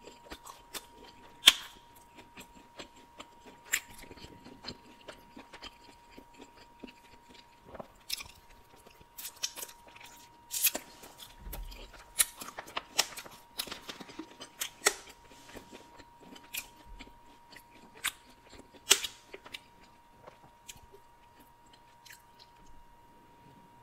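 Close-miked chewing of breaded boneless buffalo chicken wings: irregular wet mouth clicks and crunches, thinning out near the end.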